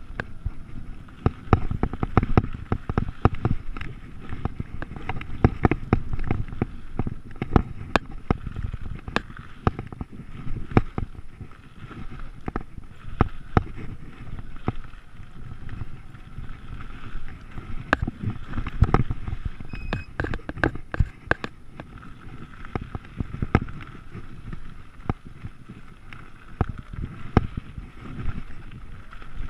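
Bicycle and its handlebar-mounted camera rattling and knocking over bumps on a rough dirt track, with tyres rolling over loose gravel. The knocks come irregularly, several a second, over a steady low rumble.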